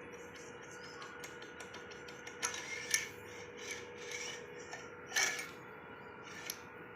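Metalworking sounds: irregular scraping and rasping on metal with light clinks, and a sharper knock about five seconds in, over a faint steady hum.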